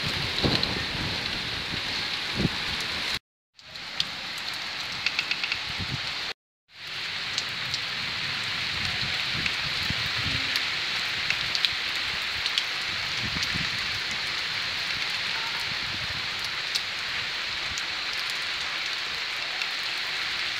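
Steady heavy rain falling and pattering on surfaces, with scattered sharper drip ticks. The sound drops out to silence twice in the first seven seconds or so.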